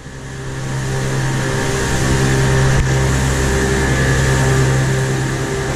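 Twin Yamaha outboard motors running at speed as the boat gets under way, building up over the first second or two and then holding a steady pitch, under a rush of wind and water.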